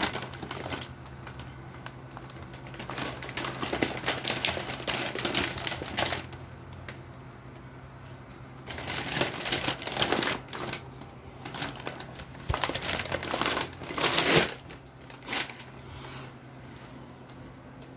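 Paper packing wrap around a chrome bumper rustling and crinkling in several irregular bursts as it is handled, over a steady low hum.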